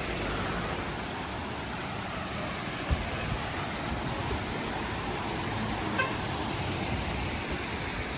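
Waterfall cascading: a steady, even rush of falling water, with a short knock about three seconds in and another near six seconds.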